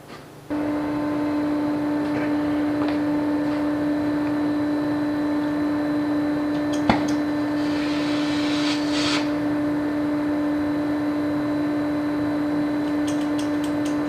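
A heating tool switches on about half a second in and runs with a steady, even hum while it heats a battery cable terminal to melt solder into it. A single sharp click comes about halfway through.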